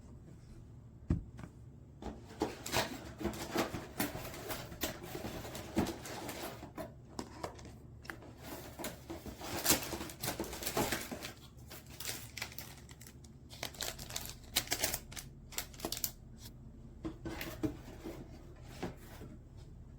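Typing on an EPOMAKER x Aula F75 gasket-mount mechanical keyboard with Ice Vein switches: a steady, irregular run of keystrokes with a few louder strikes in between.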